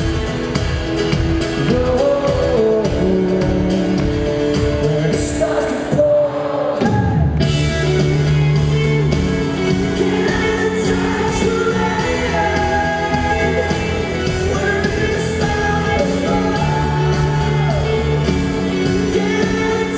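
Pop-rock band playing live: male lead vocal over acoustic guitar and band. The music briefly thins out about six seconds in, then comes back fuller in the low end.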